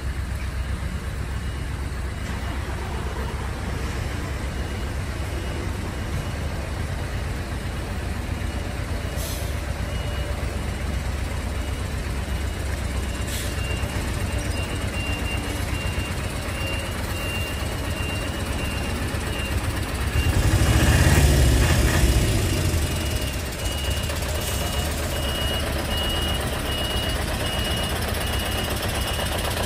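Heavy truck hauling a multi-axle low-loader trailer runs with a steady low engine rumble while a warning beeper sounds in short repeated beeps from about ten seconds in. About twenty seconds in the truck noise swells louder for two or three seconds, then settles back.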